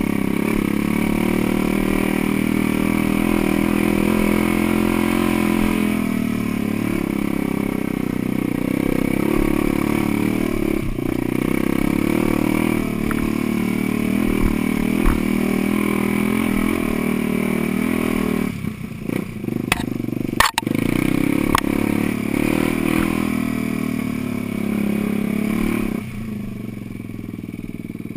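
Off-road vehicle engine running steadily under load on a rough trail, with a few sharp knocks and clatters about two-thirds of the way through. The engine note drops a couple of seconds before the end.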